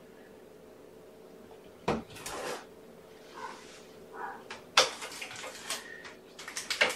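Handling noise at a wire pet pen: sharp knocks and rattles about two seconds in, near five seconds and again at the end, with softer shuffling and clinking between.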